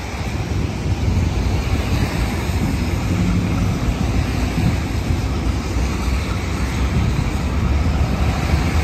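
Two Norfolk Southern diesel locomotives running as they move past, a deep steady engine rumble that grows a little louder about a second in, with wind noise on the microphone.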